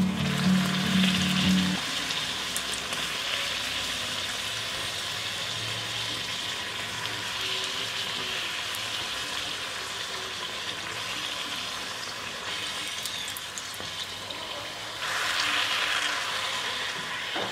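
Spinach puri deep-frying in hot oil in a kadhai: a steady sizzle, which grows louder for about two seconds near the end. Background music stops about two seconds in.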